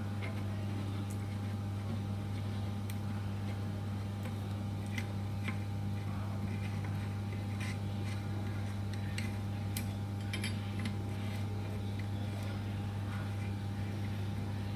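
Faint, scattered light metallic clicks from a long 10 mm hex key turning the fixing bolt of a Shimano freehub body to unscrew it, the clicks busiest around the middle. A steady low hum runs underneath.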